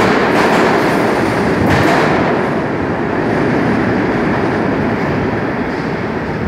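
An R46 subway train runs out of an underground station. There are two knocks from the passing cars within the first two seconds, then the train's noise slowly fades as it pulls away into the tunnel.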